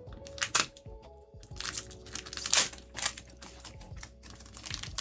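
Trading card booster pack wrapper crinkling and tearing as it is opened by hand, in several short, sharp rustles, over faint background music.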